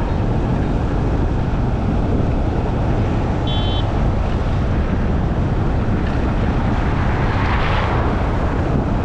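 Wind rumbling on the microphone over vehicle noise while travelling along a road. A short high-pitched tone sounds about three and a half seconds in, and a brief rushing swell comes near the end.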